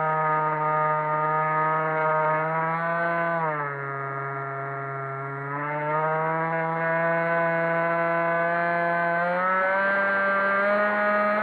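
Multiplex EasyStar 3 RC plane's electric motor and pusher propeller running, heard close up from the onboard cockpit camera. The pitch and loudness drop about three and a half seconds in as the motor slows, climb back around six seconds, and step higher near the end.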